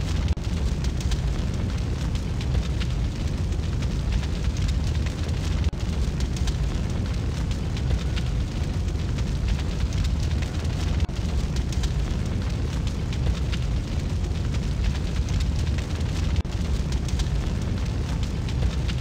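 Large fire burning in a rock tunnel, a steady deep rumble with fine crackling on top.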